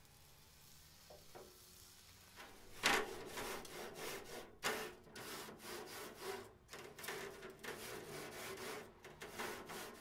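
Grill-cleaning scrubber scraping back and forth across a steel smoker cooking grate: a sharp first stroke about three seconds in, then a steady run of rasping strokes, roughly two a second.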